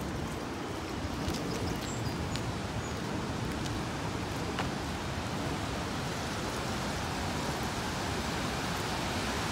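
Steady rushing of a large waterfall, the Great Falls of the Passaic River pouring over a wide rock ledge.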